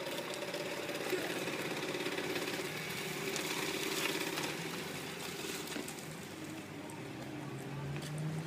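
A car driving past close by, engine running steadily, with the rush of its passing loudest about four seconds in.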